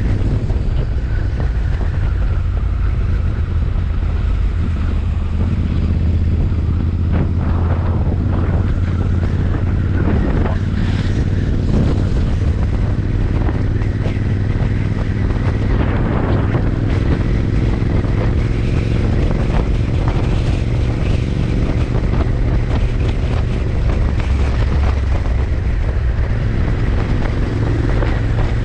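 Royal Enfield Interceptor 650's 648 cc parallel-twin engine running through its exhaust, a loud, steady low rumble with wind on the microphone.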